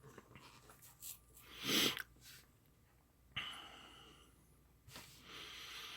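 A short breath through the nose about two seconds in, among faint handling sounds.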